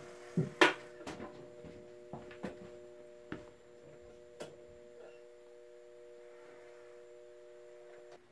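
Steady electrical hum from the powered O gauge model train layout while the steam locomotive stands still, with a few sharp clicks in the first four or five seconds. The hum cuts off abruptly near the end.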